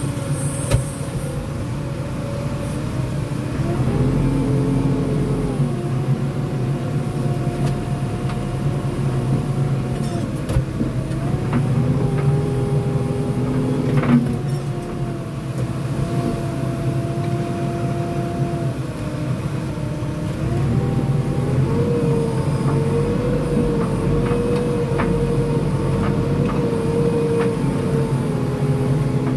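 JCB 3DX Super backhoe loader's diesel engine running as the machine drives. Its pitch rises and falls several times with the throttle, with one short knock about halfway through.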